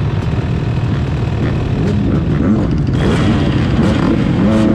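Several motocross bikes idling on the start line with throttles being blipped, their engine notes rising and falling over one another, busier from about three seconds in.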